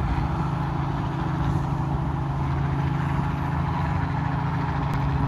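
Steady engine drone with a constant low hum, unchanging in pitch.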